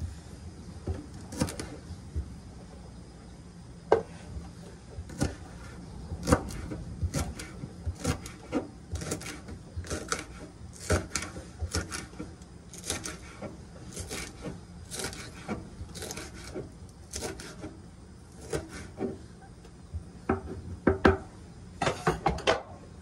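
Kitchen knife chopping green onions on a wooden board: the blade knocks sharply on the wood at an uneven pace, about one or two cuts a second, with a quick run of cuts near the end.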